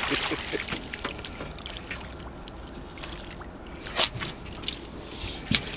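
A sturgeon is hauled up out of the river over the side of an aluminum boat, with water splashing and dripping. Scattered sharp knocks follow, the loudest about four seconds in and again about five and a half seconds in.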